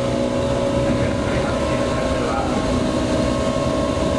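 Running noise inside the motor car of a JR 115 series electric train: a continuous rumble of wheels on rail with a steady motor and gear whine whose main tone edges slightly up in pitch.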